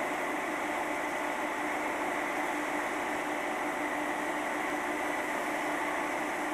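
Class 43 HST diesel power car engine running steadily, a drone with a steady high whistle over it.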